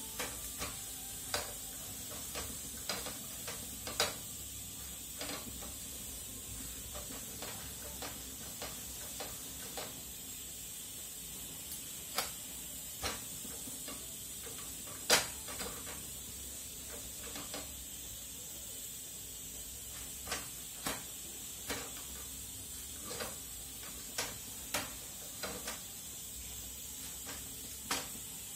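Lachha paratha frying in a pan with a faint steady sizzle, while a wooden-handled press knocks and taps against the pan as the paratha is pressed down to crisp: irregular short knocks, a couple of dozen in all, with one louder knock about halfway through.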